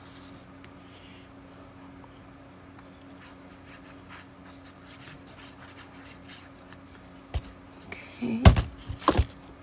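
Soft scratching and rustling of paper being handled while liquid glue is run along a folded ledger-paper piece, over a faint steady hum. Louder paper rustles and knocks come near the end as the piece is picked up and turned.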